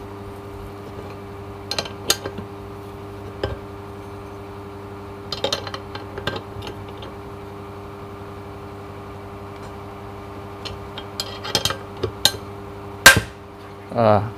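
Ring spanner clicking against the nut and bolt of an inner bearing puller as it is turned in short strokes, with scattered metal clicks over a steady low hum. About 13 seconds in comes a single sharp loud crack: the pop of the tight bearing breaking free, the sign that it has come out of the crankcase.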